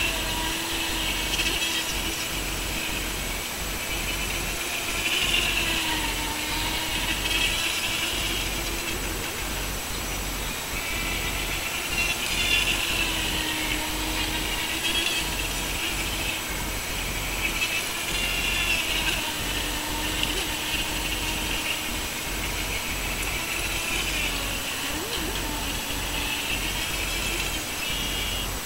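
Atomik Barbwire radio-controlled speedboat running at speed across the water: a steady motor hum with a higher buzzing whine that swells and fades as the boat passes, its pitch rising and dropping briefly near the end.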